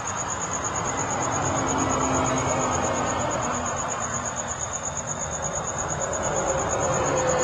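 A cricket chirping in rapid, even pulses at one high pitch, over a steady broad rushing noise underneath.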